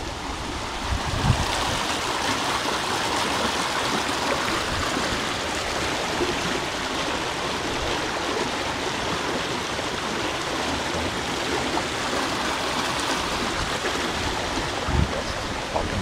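Shallow creek water rushing steadily over stones in a narrow stone-walled channel.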